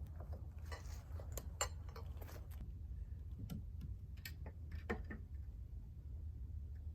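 Scattered light clicks and taps, a cluster in the first two and a half seconds and a few more between about three and five seconds in, over a steady low hum.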